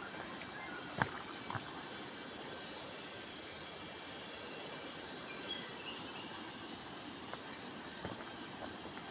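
Steady chorus of rain-forest insects with thin, high, continuous tones, and a few footsteps on the path about a second in and again near the end.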